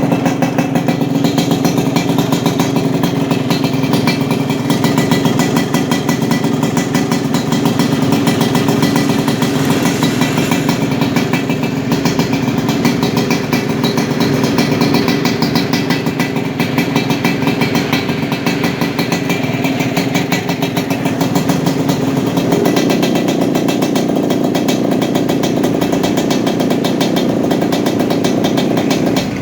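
Yamaha RX-King 135cc two-stroke single-cylinder motorcycle running steadily, with a deep, bassy 'snoring' (ngorok) exhaust note. Its tone shifts a little about two-thirds of the way through.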